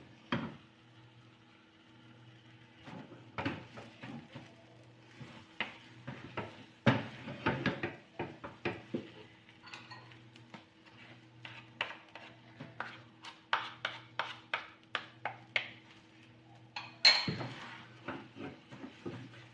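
A cooking utensil knocking and scraping against a kawali (wok) while sticky glutinous rice is stirred, in short irregular strokes that come faster in the second half, with one louder knock near the end. A faint steady low hum runs underneath.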